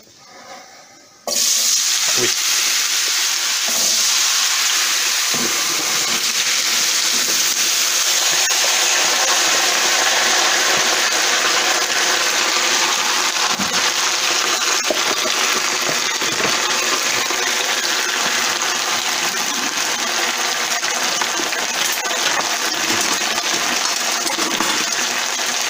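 Diced raw potatoes hitting very hot rendered pork fat (salo) over a high gas flame. The fat bursts into a loud sizzle about a second in and keeps sizzling steadily, with a few light knocks of potato pieces against the pan.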